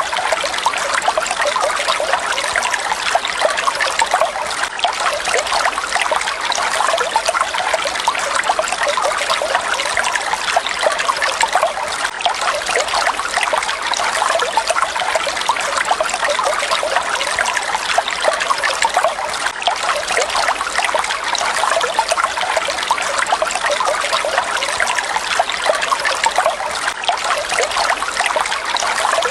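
Falling water splashing steadily, a dense even patter of small splashes with no change in flow.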